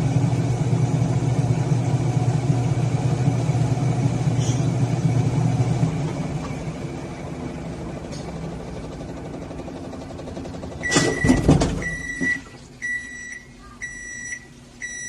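Sharp ES-FA650P automatic washing machine spinning with a steady motor hum that fades from about six seconds in as the drum winds down. A clatter follows about eleven seconds in, then a series of high beeps about a second apart as the spin cycle ends.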